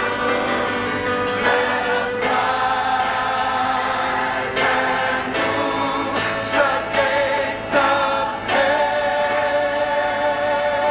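Large mixed choir singing a gospel song in sustained chords that change every second or two.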